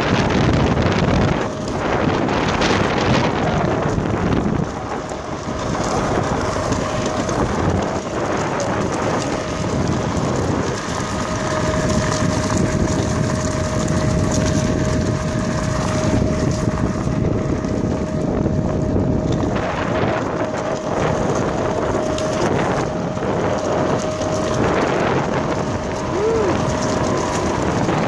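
Fiik Big Daddy electric skateboard rolling fast over a gravel and dirt trail: a steady rumble of wheels on loose grit, mixed with heavy wind buffeting on the microphone. A thin, steady tone runs beneath it through much of the ride.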